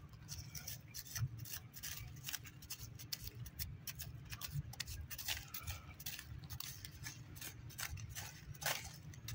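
Young macaque eating: faint, irregular small clicks and crunches of chewing, over a steady low rumble.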